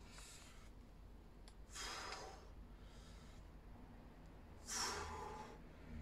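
A man breathing hard from exertion. There are forceful exhalations about two seconds in and again near the end, the later one the loudest, with fainter breaths between.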